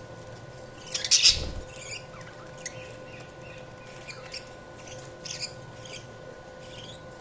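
Budgerigars chirping: a loud burst of chirps about a second in, with a dull thump under it, then scattered short chirps. A faint steady hum runs underneath.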